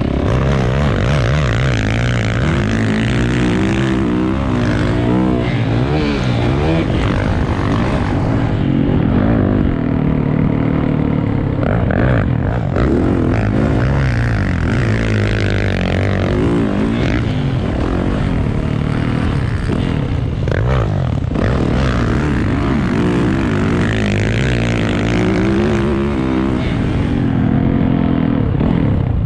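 A vehicle engine at speed, revving up and falling back again and again, its pitch rising and dropping in repeated sweeps over a steady rush of noise.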